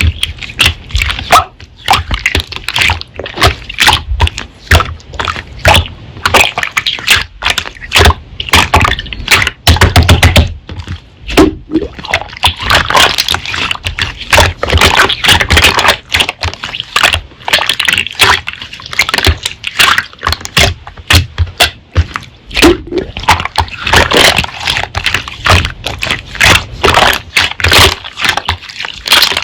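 Slime being squeezed, pressed and stretched by hand: a dense, irregular run of sticky clicks and crackling pops.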